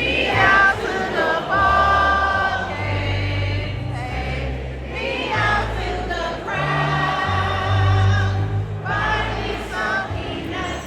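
Gospel-style music with a choir singing over a steady bass line.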